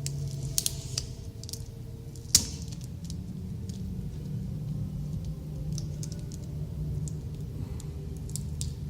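Small clicks and taps of fingers working at a laptop's taped-down screen cable, with one sharp click about two and a half seconds in, over a steady low hum.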